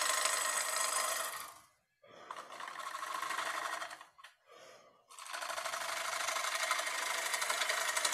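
Bowl gouge cutting a spinning, freshly harvested cedar bowl blank on a wood lathe: a rapid, even chattering rasp of steel shearing wood. It comes in three passes of one to three seconds, with short pauses between them.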